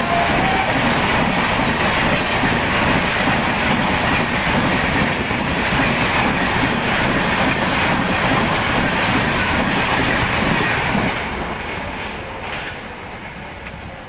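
Express passenger train passing at speed, about 110 km/h: the locomotive's twin-tone horn cuts off just under a second in, leaving a loud, steady rush and rumble of coach wheels on the rails that fades over the last few seconds as the train draws away.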